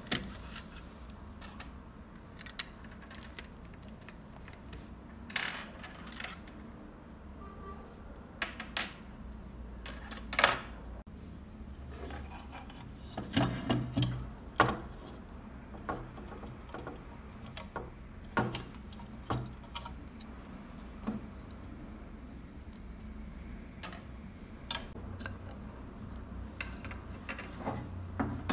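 Irregular small clicks, knocks and clatter of a scale model Ford F-150 pickup being taken apart by hand, its plastic chassis, interior tub and metal body pieces knocking against each other and on the wooden tabletop, busiest about halfway through, over a low steady hum.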